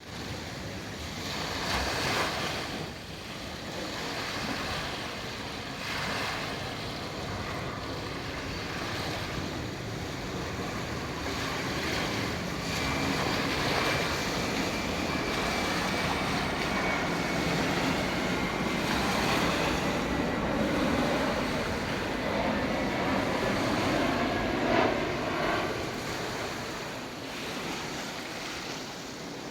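Sea waves breaking and washing on a beach, swelling and easing in loudness, with wind buffeting the microphone. A faint high whine runs for several seconds midway, slowly falling in pitch.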